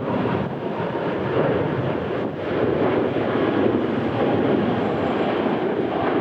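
Jet airliner engine noise, a steady rush with a faint whine that fades in the first couple of seconds.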